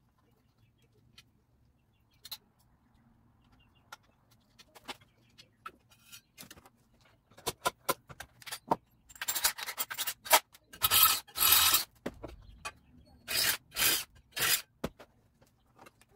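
Hand work on a light housing and its bracket at a workbench: scattered clicks and knocks, then a run of rapid clicks and several harsh scraping bursts in the second half.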